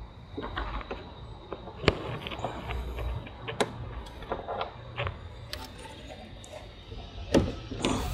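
Irregular clicks and knocks of a small wrench and hands working blind behind a Ford Ka's headlight, undoing its hidden third mounting screw, with one sharper click about two seconds in. A low steady rumble runs underneath.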